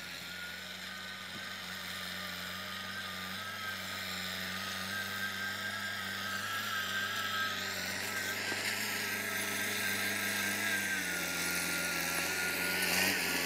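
Tractor engine running steadily under load while pulling a disc harrow through field stubble, growing gradually louder as it comes closer.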